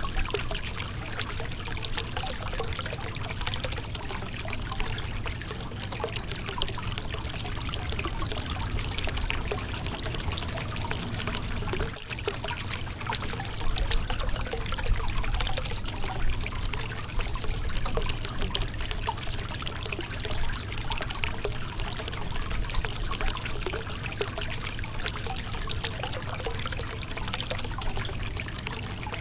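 River water flowing and trickling over a rocky bed: a steady rush of running water dotted with many small splashes.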